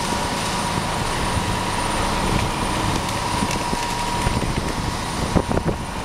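Concrete mixer truck's diesel engine running steadily under load, heard from inside the cab, as the truck creeps forward in low gear with the drum discharging concrete; a steady high whine runs through it, and a few short knocks come about five seconds in.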